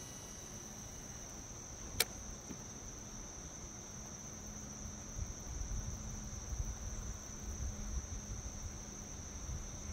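Steady high-pitched insect chorus holding one unbroken note. A single sharp click comes about two seconds in, and an uneven low rumble underneath grows stronger in the second half.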